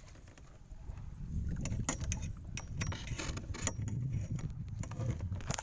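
Fishing gear being handled in a small boat: a scatter of sharp clicks, knocks and rattles over a low, steady rumble, as the mesh net and its pole are worked.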